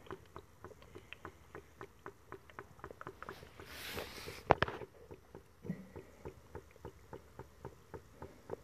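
Homemade HHO electrolysis generator run at 25 volts, bubbling fast: a quick, irregular patter of small pops and clicks from the gas bubbles. There is a brief rustle about four seconds in.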